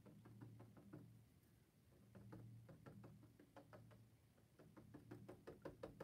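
Paintbrush dabbing paint onto a stretched canvas on an easel: faint quick taps, several a second, coming in short spells as the brush stipples on dark tree shapes.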